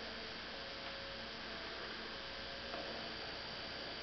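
Steady electrical hum and hiss, with one faint click near the end.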